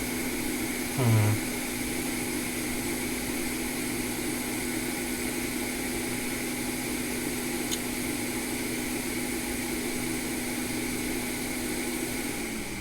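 Electric blower fan on the repair bench running steadily with a hum and airy hiss, then switched off and spinning down near the end.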